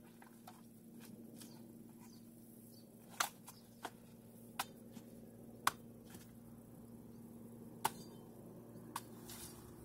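Scattered sharp cracks and snaps, about six of them at uneven intervals, from thick weed stems being broken and knocked down as the overgrowth is cleared.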